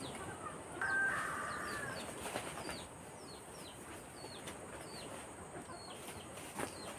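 Chickens: a hen gives one drawn-out, slightly falling call about a second in, while short, high, downward-sliding chirps repeat two or three times a second. A couple of light knocks come from pieces of cut palm trunk being handled.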